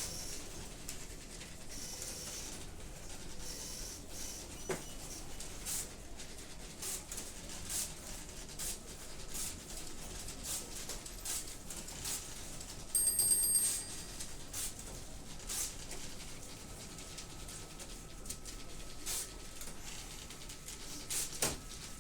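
Teleprinter room ambience: teleprinters running with irregular light clicks and ticks over a steady background. A brief high ringing tone sounds about 13 seconds in, and a faint steady tone comes in near the middle and holds.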